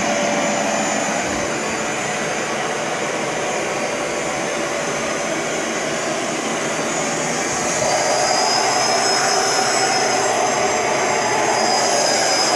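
Bissell ProHeat 2X Revolution Pet Pro upright carpet cleaner running on carpet: a steady motor drone with a high whine. About eight seconds in it gets louder and a second high whine joins.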